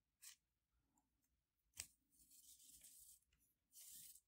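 Faint rustling of a thin 1 mm micro cord being drawn through the weave of a paracord cobra-knot bracelet: two light ticks, then two short hissing rubs as the cord slides through.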